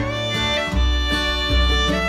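Instrumental background music: a melody of held notes over a bass line that changes about every half second or so.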